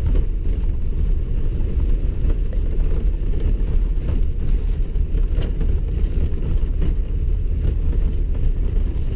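Steady low rumble of a vehicle driving slowly over packed snow and ice, heard from inside the cab: engine and tyre noise, with a few faint clicks.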